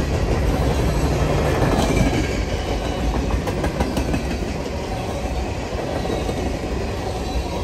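Boxcars of a CN freight train rolling past close by: a steady, loud rumble of steel wheels on rail, with a few clicks of wheels over the rail joints.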